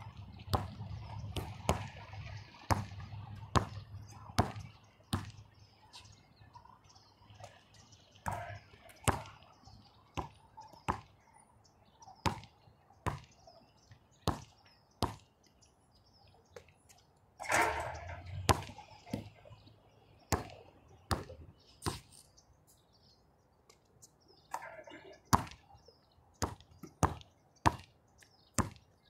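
Basketball bouncing on a hard outdoor court: sharp, separate thuds at irregular intervals, roughly one a second, with a few longer, noisier stretches in between.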